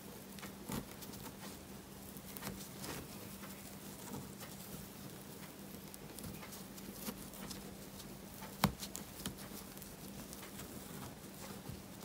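Steel crochet hook working jute twine over a rope cord, a faint dry rustling and scratching of fibre with small scattered ticks, and one sharp click about two-thirds of the way through.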